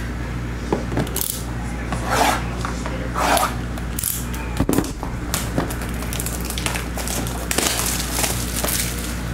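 A cardboard trading-card box being handled and opened by hand: a string of short rustling and scraping sounds from the cardboard and its wrapping, with one sharp tap a little under halfway through.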